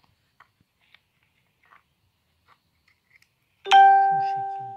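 Faint clicks of the door lock actuator's plastic and metal parts being handled, then, about three and a half seconds in, a single loud bell-like chime: one ding that fades over about a second.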